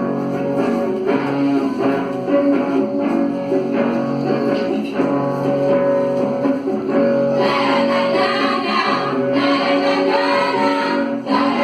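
Song introduction with strummed guitar accompaniment; a higher, wavering melody line comes in about seven seconds in.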